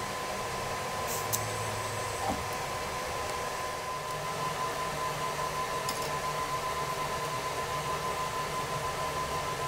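Steady fan-like hum and hiss of a running machine, with a faint steady high tone and a couple of light metal clicks about a second in.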